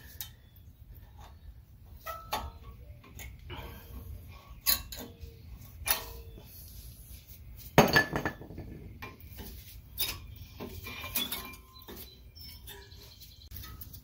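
Front brake pads and their metal clips clinking and scraping against the caliper bracket as they are pried out with a flathead screwdriver: irregular small metallic clicks and knocks, a few of them ringing briefly, with a louder clank about eight seconds in.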